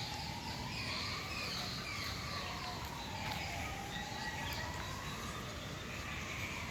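Small birds chirping over a steady outdoor rumble, with a faint tone that slowly rises and falls in pitch.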